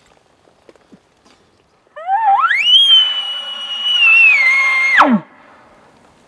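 Hunter's elk bugle blown on a diaphragm-reed call: a low start gliding up into a long high whistle, held, stepping down, then ending in a quick falling drop, about two seconds in until about five seconds in. A companion says the reed is cutting out.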